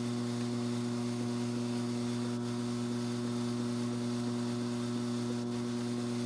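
Strauch Mad Batt'r XL electric drum carder running at low speed: a steady electric motor hum, with a faint tick about every three seconds.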